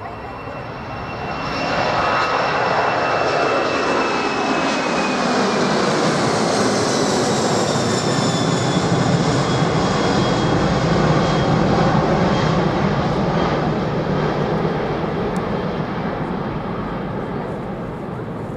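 Large jet aircraft passing by under engine power: a loud rush that builds about two seconds in, with high engine whines that fall in pitch as it goes past, then slowly fades.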